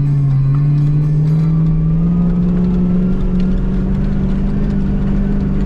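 Off-road vehicle's engine running under load as it drives through soft desert sand, the revs climbing gradually over the first couple of seconds and then holding steady.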